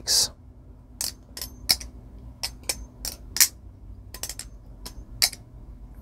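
Fiore custom balisong (butterfly knife) being flipped open by hand: its titanium channel-construction handles and blade swing on the pivots and knock together in a dozen or so sharp, irregularly spaced metallic clicks, a sound its owner calls very beautiful.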